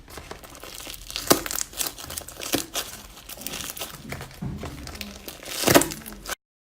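Slime being squeezed and pressed by hand: a run of crackling, popping clicks, with sharper pops about a second in and near the end, before the sound cuts off abruptly.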